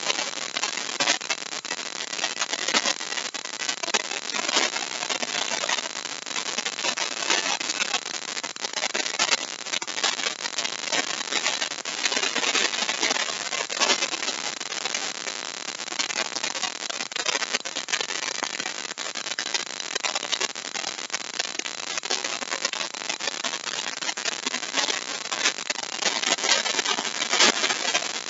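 Compact trim router running at speed and cutting a deep mortise into wood, a dense steady noise with a fine crackle of chips.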